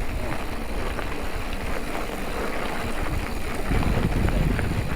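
Steady low rumble of riding noise on a chest-mounted action camera: wind on the microphone and mountain-bike tyres rolling over the trail. It gets louder a little before the end.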